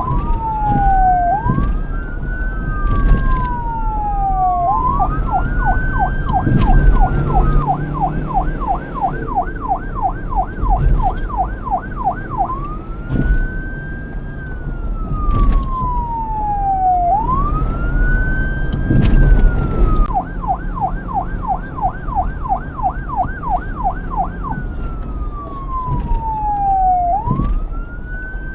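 Police car electronic siren switching back and forth between the slow wail, which rises and falls about every four seconds, and the fast yelp at about four sweeps a second. A steady low rumble runs underneath.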